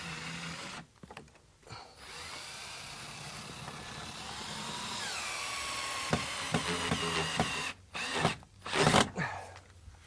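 Power drill driving screws into a hardwood stair railing: a short run, then a longer one with the motor pitch sliding up and down as the screw bites. A few sharp knocks and a louder clatter follow near the end.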